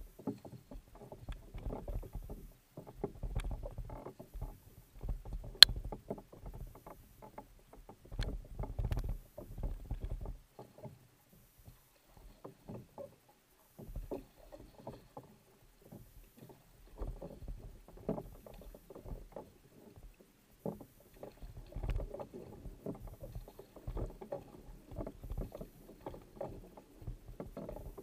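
Kayak paddle blades splashing in and out of the water in repeated strokes, with water washing past the hull and low gusts of wind on the boat-mounted microphone. One sharp click about five and a half seconds in.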